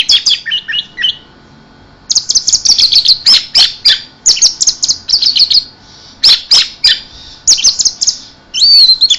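Orange-headed thrush singing loud runs of quick, high, varied notes, each run lasting about a second, with short pauses between them.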